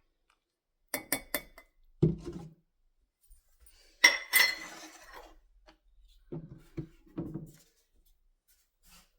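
Kitchenware clinking and knocking while cake ingredients are measured: three quick light clicks, a dull thud, then a loud ringing clink about four seconds in, followed by a few softer knocks.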